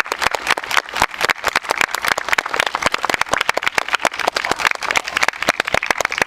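A crowd clapping: many quick, irregular claps running together.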